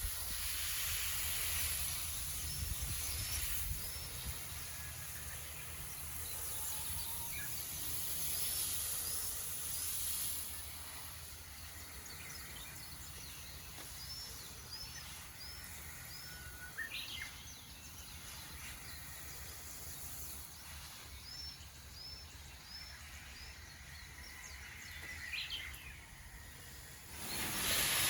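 A small songbird repeats a short phrase of three or four high chirped notes about every six seconds, with a few single calls between, over a steady outdoor hiss and low rumble.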